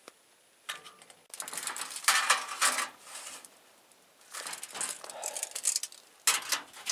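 Thin sheet metal and a steel tape measure being handled while the metal is measured out, giving light metallic rattles, clicks and scrapes in three bursts.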